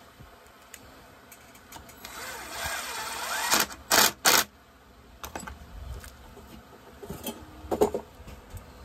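A cordless screwdriver whirs as it drives a screw into a chainsaw's housing, its motor pitch wavering. Around four seconds in come two short, loud bursts, then clicks and clatter of tools being handled, with another brief loud clatter near the end.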